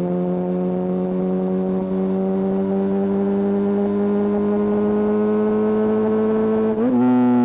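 Kawasaki ZX-6R inline-four through a Hindle aftermarket exhaust, pulling steadily as the engine note slowly climbs in pitch. Near the end the note jumps quickly and gets louder, as at a gear change.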